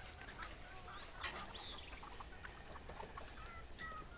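Faint farmyard fowl: hens clucking now and then, with short high chirps and whistles scattered through.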